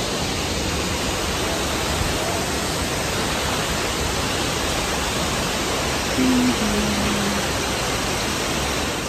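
Waterfall rushing in a steady, even roar, with a short low tone about six seconds in.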